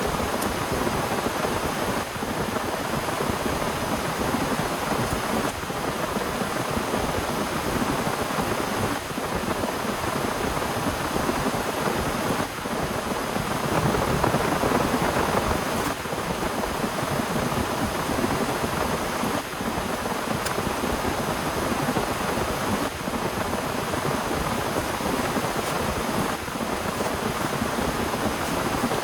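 Heavy rain falling steadily in a dense, even hiss, swelling a little about halfway through.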